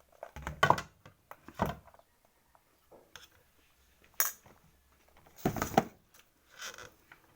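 Eating utensils knocking and clinking against plates and bowls during a meal: a handful of separate sharp clinks, the loudest group about two thirds of the way through.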